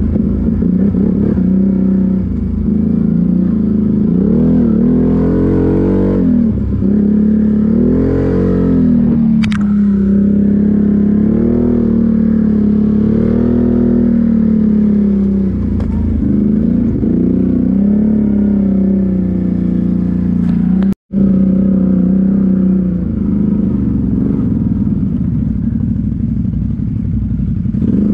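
ATV (quad bike) engine running under way on a rough dirt trail, its revs rising and falling with the throttle. A sharp click about a third of the way in, and a momentary cut in the sound about three-quarters of the way through.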